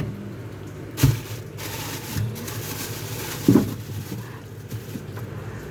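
A few knocks and thumps over a low steady hum: a sharp knock about a second in, followed briefly by a hiss, then two softer thumps.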